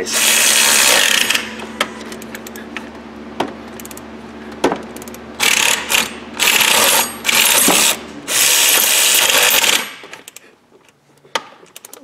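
Power ratchet running in bursts as it drives 5/16 bolts into the threads of a separated harmonic balancer (crank pulley). There is a long run at the start, then four shorter runs in quick succession about halfway through, with a few clicks between them.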